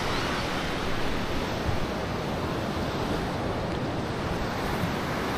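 Steady rush of surf breaking along the beach, with wind buffeting the microphone.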